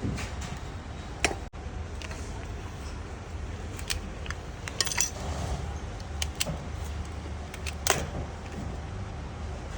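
Small metal parts clinking and tapping now and then over a steady low machine hum, typical of metal heater-rod parts being handled at a workbench.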